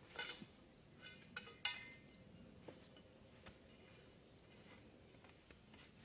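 Quiet outdoor ambience with a steady thin high whine, and a few short scrapes and sharp snaps in the first two seconds as hands work in dry grass and soil, the loudest snap just under two seconds in.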